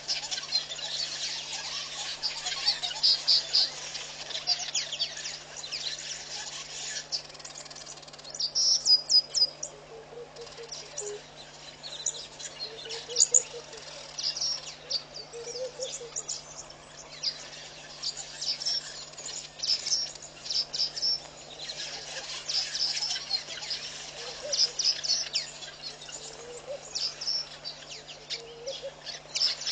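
Birds chirping and peeping in quick high-pitched runs, with a steady low hum underneath.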